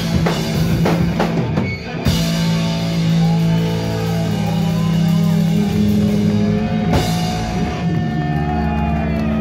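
Live rock band playing loud: drums and distorted bass and guitar for about two seconds, then big chords struck and left ringing, with another full-band hit about seven seconds in.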